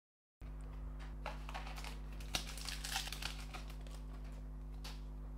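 Glossy Panini Donruss Optic basketball cards rustling and sliding against each other in the hand as a pack's stack is flipped through, with a small click near the end. A steady low hum runs underneath, after a brief moment of total silence at the start.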